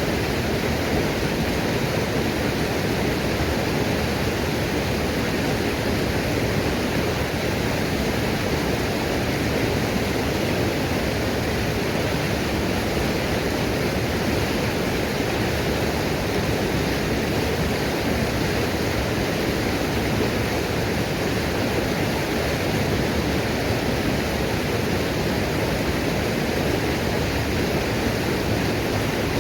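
Small roadside waterfall rushing steadily, a constant, unbroken wash of falling water with no change in level.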